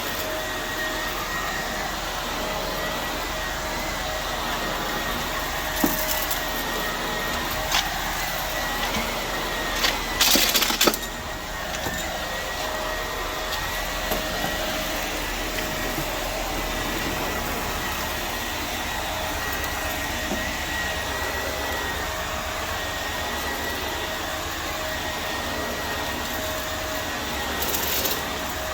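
Vacuum cleaner running steadily with a constant motor whine. A few brief louder hissing rushes break through, the loudest about ten seconds in.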